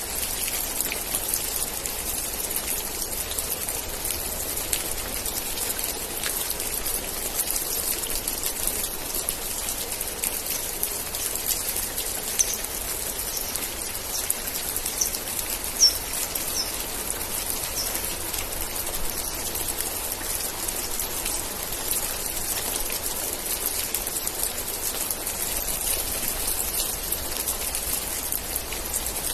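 Steady rain with a dense patter of drops. A few short high chirps come between about twelve and eighteen seconds in.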